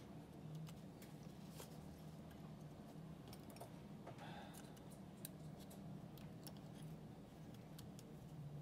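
Quiet room tone with a steady low hum and faint, scattered small clicks and taps, with one sharper tick about five seconds in.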